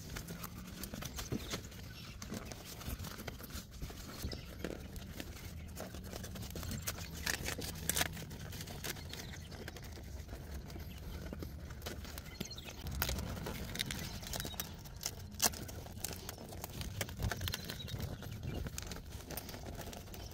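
Handling noise of a flexible lineset protection sleeve being stretched and worked by hand around bent refrigerant lines: irregular rubbing, rustling and sharp taps and clicks, with a steady low rumble underneath.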